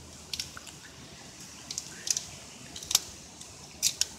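Scattered light clicks and rustles from hands working a tire plug kit: the metal insertion needle and reamer knocking together while a sticky rubber plug strip is pulled free and handled, ready to be threaded into the needle's eye.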